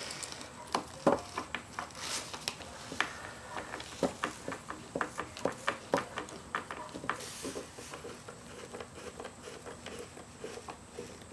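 Light, irregular taps and clicks of small wooden blocks and a glue bottle being handled and pressed into place on a wooden cabinet at a workbench, with a couple of short rustles.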